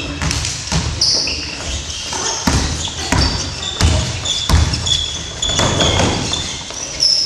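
A basketball bouncing with irregular thuds on a hardwood gym floor, and sneakers squeaking as players run and cut, echoing in the large hall.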